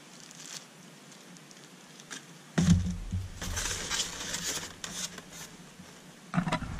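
Styrofoam packing inserts being handled and shifted in a cardboard box: scratching and crackling with a low rumble, starting about two and a half seconds in and dying down near the end.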